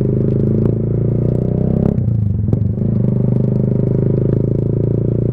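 Motorcycle engine running at steady revs through a Leo Vince GP Corsa Shorty carbon fibre slip-on exhaust with its dB killer out, giving a very loud open-pipe note. The note breaks briefly about two seconds in.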